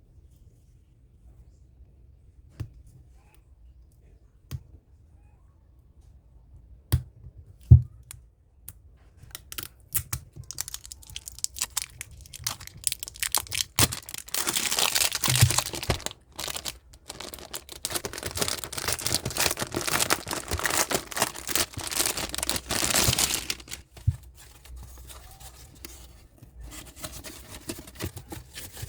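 Packaging being opened by hand: a few sharp clicks and taps at first, then a long stretch of crinkling and tearing of plastic wrappers, before it settles back to light rustling near the end.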